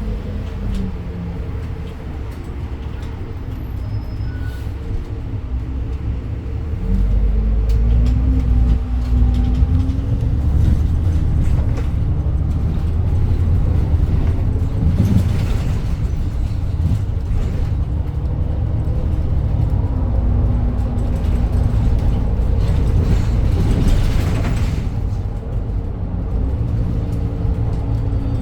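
Edison Motors Smart 110G city bus's GX12P CNG engine heard from inside the cabin: lower for several seconds, then pulling harder about a quarter of the way in with a drone that rises in pitch as the bus gathers speed. It then runs steadily under way with road noise, easing briefly near the end.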